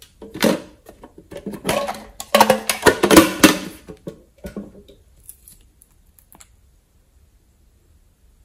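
Nail polish bottle and hard plastic containers being handled: a rapid run of clattering knocks and crinkling for about four seconds, then a few faint taps.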